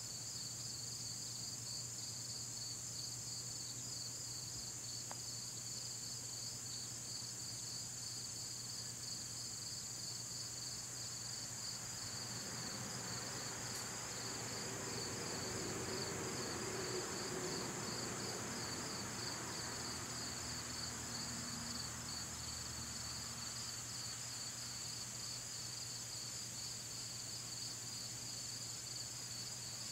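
Steady chorus of summer insects: a continuous high buzz with a fast, even, pulsing trill just beneath it. About halfway through, a low rushing sound swells up for several seconds and fades away again.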